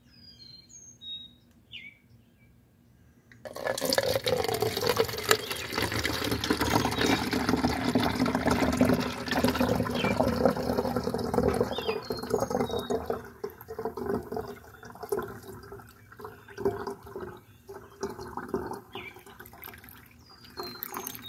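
Water poured from a plastic bottle through a collapsible funnel into a plastic spray bottle. The pour sets in suddenly about three and a half seconds in as a steady splashing stream, then thins out in the second half into a weaker, uneven trickle.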